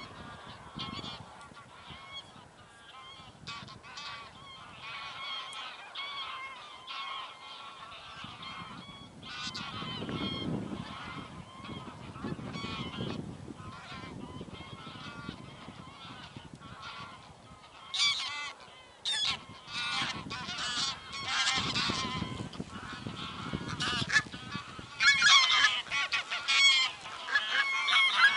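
A large flock of geese honking in flight, many calls overlapping at once, growing much louder in the last third.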